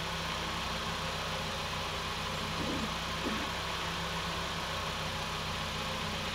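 A car engine idling steadily: an even, unchanging hum.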